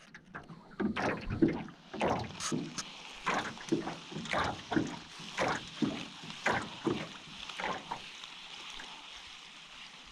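Water splashing and slapping against a small fishing boat in a quick, uneven series of splashes, about two or three a second, that die away over the last couple of seconds.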